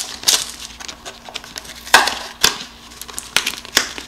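Cardboard card-game box and its packaging being handled and opened by hand: a run of short crinkling, crackling rustles, the loudest about two seconds in.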